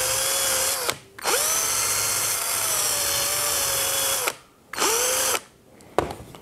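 Cordless 21 V drill spinning a cloth polishing buff against a small bright metal piece. It runs in three bursts: about a second at the start, then about three seconds, then a short burst around five seconds in. The motor's whine rises quickly in pitch as each burst starts, and there is a short click near the end.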